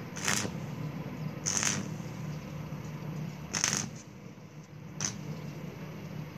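Stick (arc) welding electrode striking short tack welds on steel tube: four short crackling bursts of the arc, about a second or two apart, over a steady low hum.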